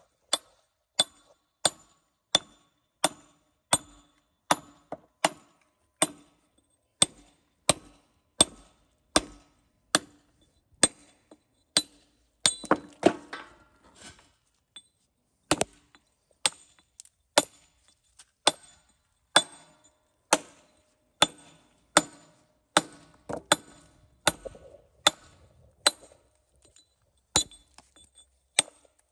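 Metal-headed mallet striking a flat steel chisel to dress the edge of a coping stone: a steady run of sharp, ringing chinks, about three strikes every two seconds, coming faster for a moment near the middle.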